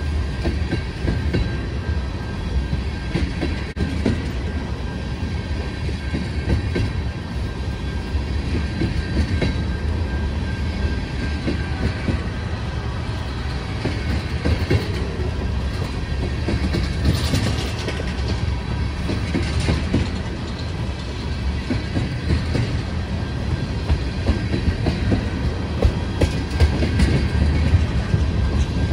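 Freight train of tank cars rolling past close by: a continuous low rumble with the wheels clattering over the rail joints.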